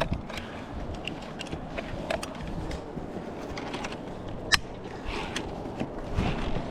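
Scattered metal clicks and clinks of harness carabiners and clips on the safety line, with one sharp, ringing clink about four and a half seconds in.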